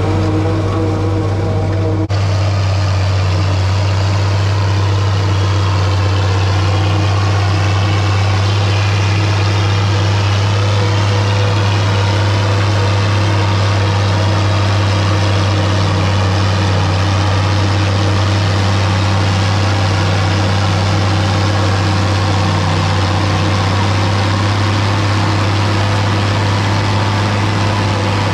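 International 1256 tractor's six-cylinder turbo diesel running steadily under heavy load, with the New Holland 790 forage harvester it pulls chopping corn. The sound changes abruptly about two seconds in.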